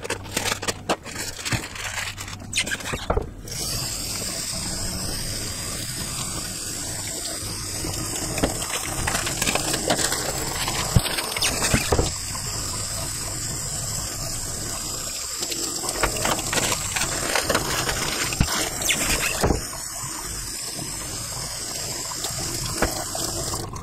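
Cold water running from a kitchen tap into a stainless steel sink and splashing over pork knuckles being rinsed by hand, with occasional knocks against the sink. The flow gets louder about three and a half seconds in and then runs steadily.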